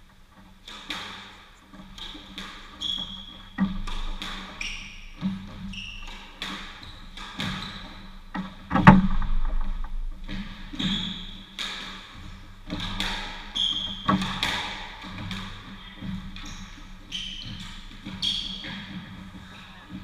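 Squash rally: the ball cracks off rackets and the court walls about once a second, the loudest hit about nine seconds in, with sports shoes squeaking on the wooden floor between shots.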